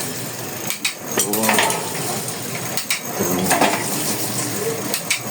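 Light metal clinks and rattles from bicycle parts and tools, with a few sharp clicks.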